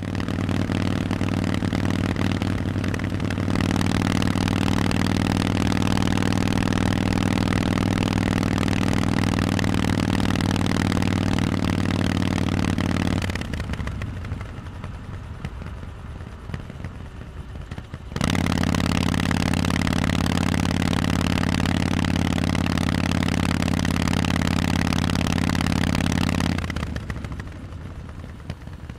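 Harley-Davidson Forty-Eight V-twin running loud through Vance & Hines exhausts, held at a steady engine speed. About halfway through, the engine note falls away for about five seconds as if the throttle is closed, then comes back steady, and falls away again near the end.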